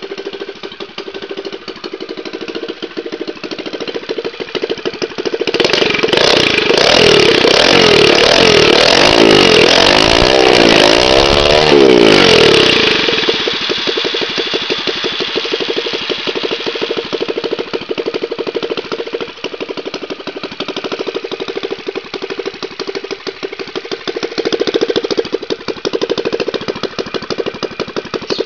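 Four-stroke motorized-bicycle engine with a loud two-stroke exhaust, idling. About five seconds in it is revved up and down several times for roughly seven seconds, then it settles back to a steady idle.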